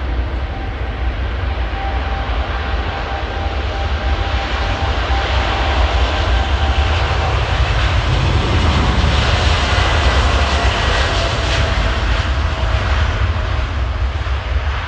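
Twin-engine widebody jet airliner's engines rumbling as it rolls along the runway, growing louder to a peak past the middle, with a faint whine that drops slightly in pitch as the jet goes by.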